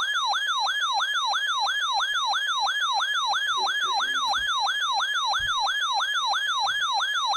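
Electronic siren alert tone in a fast repeating yelp, about three pitch sweeps a second, sounding between weather warning announcements.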